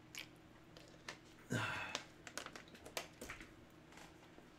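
Scattered light clicks and taps over a faint steady hum, with one short, louder burst of noise about a second and a half in.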